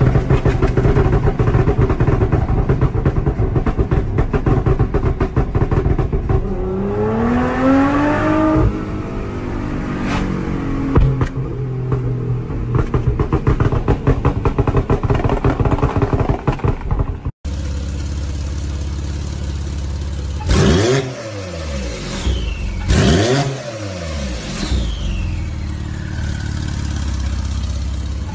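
Sports car engines running loud and revving, across several cut-together clips: a steady hard-running engine note that climbs in pitch as the car accelerates about a quarter of the way in, then, after an abrupt cut, two sharp throttle blips that rise and fall away.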